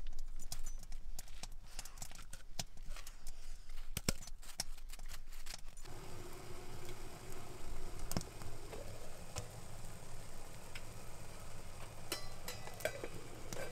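Crisp clicks and crunches of a dog moving about on snow. Then the sound changes abruptly to a quieter steady background, with a few metal clinks near the end as the lid is lifted off a steaming pot on a wood stove.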